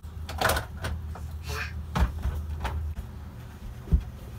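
A few knocks and clunks from a door being handled as its trim and speaker are put back, the loudest near the end, over a low hum.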